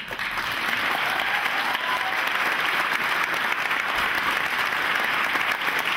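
An audience applauding, the clapping starting abruptly and holding steady.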